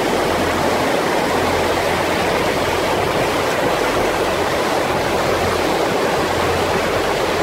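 Swollen snowmelt river running fast through whitewater rapids over stones: a loud, steady rush of water.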